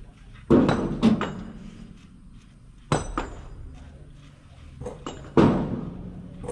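Metal hand tools knocking and clinking against the exposed diesel engine of an excavator under repair: several sharp metallic knocks, each with a short ring, the loudest about half a second in and again near the end.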